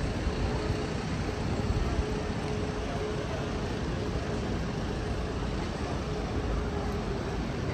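Street traffic rumbling steadily, with a faint constant engine hum running through it.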